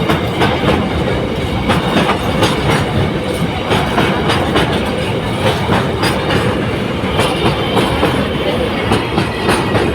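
Moving train running on the rails: a steady rumble with repeated sharp clicks of the wheels over rail joints.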